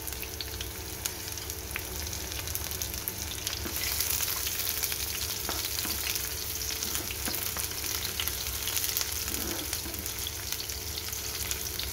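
Sliced onions sizzling and crackling in hot cooking oil in a pan while being stirred with a spatula. The sizzle grows louder about four seconds in.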